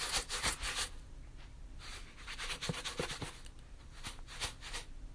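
Sugar being moved about, a dry gritty rustle that comes in three spells with a few small ticks in the middle one.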